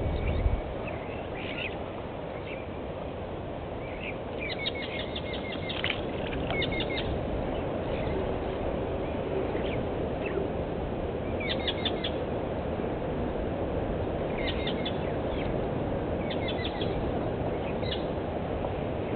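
Birds calling in short, quick chirping series, repeated several times, over a steady low rushing background. A brief low thud comes right at the start.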